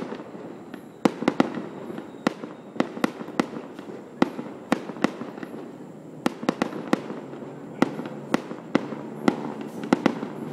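Fireworks going off in a quick, irregular string of sharp bangs, about three a second.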